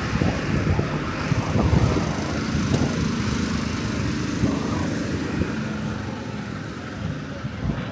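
A motor vehicle's engine running close by, with a steady engine note through the middle few seconds over uneven street noise.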